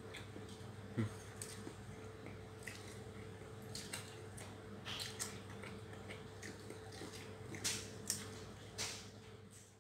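A person eating rice by hand from a steel bowl: soft chewing and mouth smacks, with scattered small clicks from fingers and food against the bowl, the sharpest about a second in. A steady low hum lies underneath.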